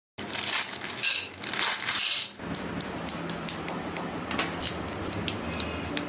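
Plastic building-brick parts of a brick-built typewriter model being handled. There are about two seconds of dense plastic rustling and clattering, then a run of separate light plastic clicks, a few a second.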